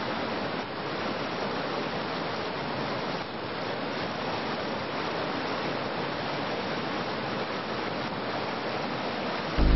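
Whitewater rapid on a river rushing steadily, a constant roar of churning water. Music cuts in just at the end.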